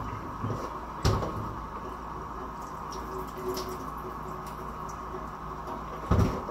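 Knocks and light clatter of kitchen things being handled at a counter: a sharp knock about a second in and two louder knocks near the end, over a steady background hum.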